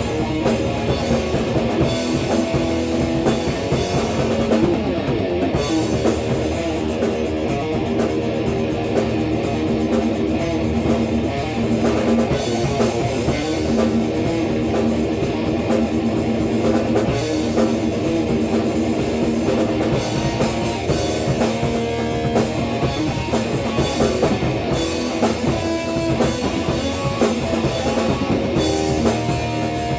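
A rock band playing a song in rehearsal: electric guitar over a drum kit, loud and continuous.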